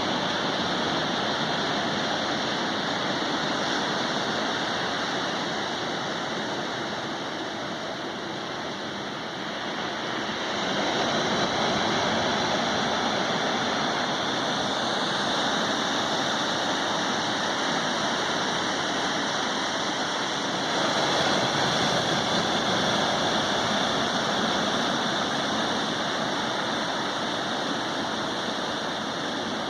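Ocean surf: waves breaking and washing up the beach in a continuous rushing wash, swelling with a new wave about a third of the way in and again about two-thirds of the way in.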